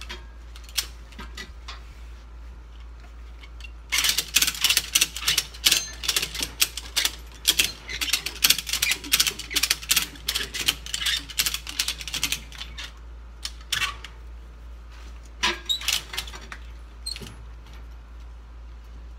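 Ratchet tie-down strap being cranked by hand, its pawl clicking rapidly over the teeth as the strap is tensioned to pull a skid steer's hydraulic lift cylinder apart. A few scattered clicks at first, then a long run of fast clicking for about eight seconds, then a few single clicks near the end.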